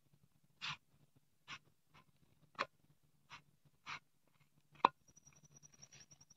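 Short, sharp crackles and taps, about seven in five seconds with the loudest near the end, from a small wood fire under an iron tawa and a paratha being turned on it by hand. Near the end there is a faint rustle as a sleeve brushes close to the microphone.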